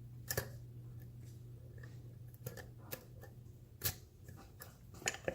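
Light metallic clicks and scrapes of a lock pick and tension wrench working the pins inside a vintage Sargent padlock's tight paracentric keyway. The clicks come irregularly, about six of them, the loudest a little under four seconds in.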